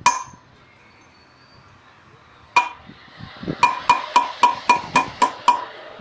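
Hammer blows on metal, each with a ringing clank: one blow at the start, another a little before the middle, then a quick run of about eight blows at roughly four a second. This is typical of driving a new wheel-bearing race into a brake drum.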